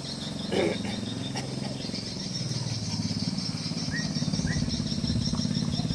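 Outdoor tropical ambience: a steady drone of insects, with a low pulsing rumble underneath that grows stronger partway through. A short louder call about half a second in, and two brief high chirps about four seconds in.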